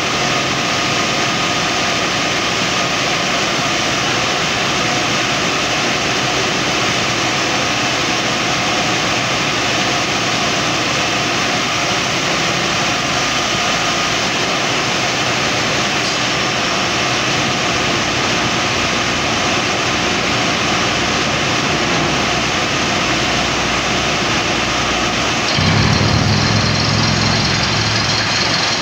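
Compressor-driven borewell drilling rig running steadily under load: a dense, even din of its engine and compressed air, which blows rock dust out of the bore. Near the end the noise turns a little louder, with a deeper rumble added.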